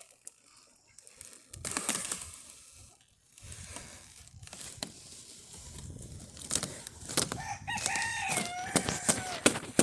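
A rooster crows once, a single call of about two seconds near the end that holds and then falls, with scattered clicks and knocks before it.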